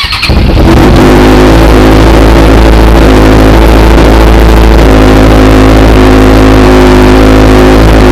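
Honda CBR 650F's inline-four engine, fitted with a very loud aftermarket exhaust, starting up and settling into a steady idle.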